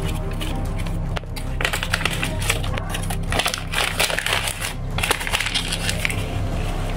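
Dense crackling and crunching, like something being crushed or crumpled close to the microphone, starting about a second in and dying down near the end, over a steady low hum.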